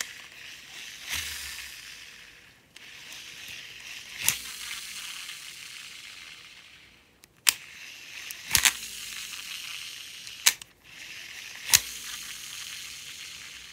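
Shimano Exsence DC baitcasting reel's spool spun freely about four times in a row: each spin is a high hissing whir that fades as the spool slows, and sharp clicks fall between and within the spins. The DC brake's usual whine is weak or missing, the fault being tested; the owner hears it only a little.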